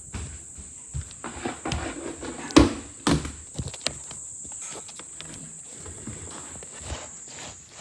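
Irregular knocks, taps and thumps of handling, the loudest two thuds about two and a half and three seconds in, over a faint steady high-pitched whine.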